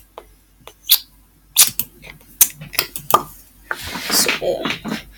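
A run of sharp, separate clicks from a computer mouse being clicked, with a short breathy rush of noise about four seconds in.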